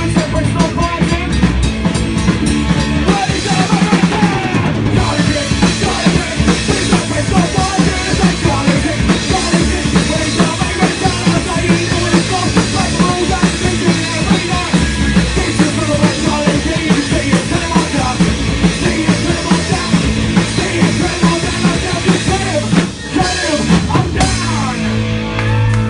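Live rock band playing loud, with a full drum kit driving a fast, steady beat under guitars and bass. Near the end the playing breaks briefly, then comes back as a held chord.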